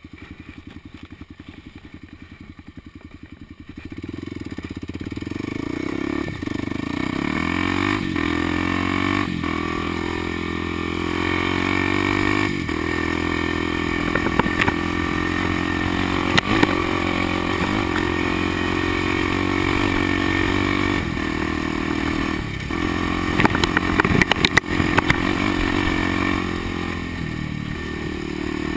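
Kawasaki dirt bike engine running at low revs for the first few seconds, then opening up about four seconds in as the bike rides along a dirt trail, its pitch climbing and dropping back several times. A few sharp clatters come in the later half.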